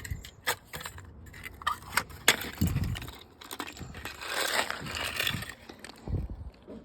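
Hammer striking a plastic alarm clock, a string of sharp knocks followed by a stretch of crackling and crunching from the breaking casing.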